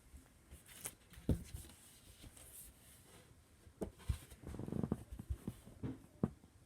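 Hands squishing and poking slime: scattered small sticky pops and clicks, with a longer run of squelching about four to five seconds in.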